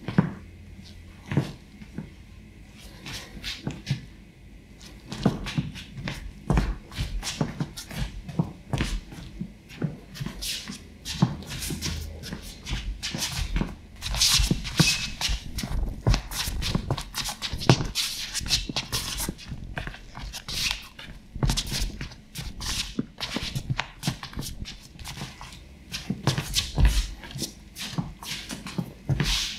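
Shoes stepping, stamping and scuffing on a wooden parquet floor in quick, irregular footwork steps, with an occasional sole squeak.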